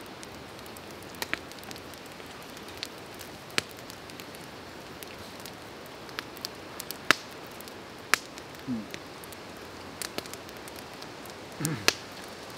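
Wood campfire crackling, with a dozen or so sharp, separate pops scattered over a steady background hiss.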